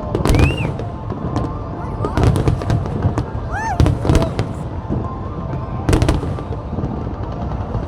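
Fireworks display: a series of loud bangs about every one to two seconds over continuous crackling and rumble, with a few short rising whistles.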